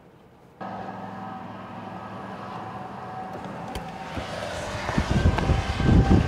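Steady car hum heard from inside the cabin, starting abruptly about half a second in. From about five seconds in, gusty wind buffets the microphone, growing louder.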